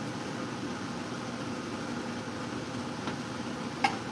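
Steady fan-like hum in a kitchen, with a faint click about three seconds in and a sharper metallic clink just before the end as metal tongs take beef from a bowl.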